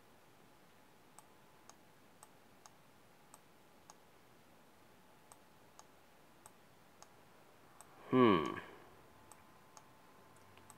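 Faint computer mouse clicks at an irregular pace, roughly one to two a second. About eight seconds in, a short voiced sound from a person, falling in pitch, is the loudest thing.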